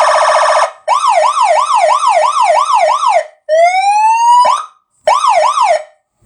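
Electronic multi-tone vehicle horn with 15 sounds, stepping through its siren tones. It starts with a fast warble, then gives a quick rising-and-falling wail at about three sweeps a second, then a single long rising whoop, and ends with a short burst of the sweeping wail.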